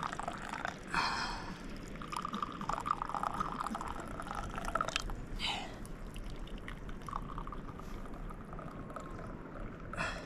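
Tea poured from a small teapot into glass tea glasses one after another, a thin stream splashing into each glass in stretches of a few seconds. Three short sharp knocks fall between the pours.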